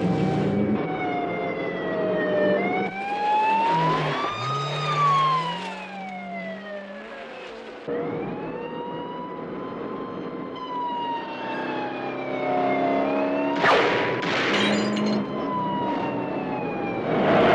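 Police car siren wailing, its pitch sweeping slowly up and down, over the low running and revving of a six-wheeled army truck's engine. Two loud harsh noises cut in, about three-quarters through and at the end.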